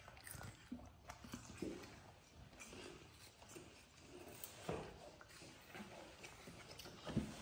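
Quiet mouth sounds of a young pet monkey biting and chewing food off a fork: small scattered clicks and smacks, with a louder knock about five seconds in and another near the end.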